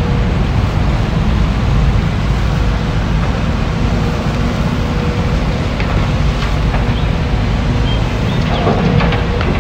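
Tracked excavator's diesel engine running steadily as a low rumble, mixed with wind buffeting the microphone. A few short, faint high squeaks come near the end as the machine slews and moves its boom.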